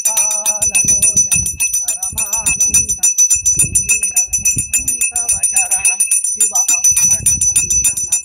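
Brass hand bell rung rapidly and without a break for an aarti: a quick, even patter of clapper strikes over steady high ringing tones. Voices are heard briefly now and then over the ringing.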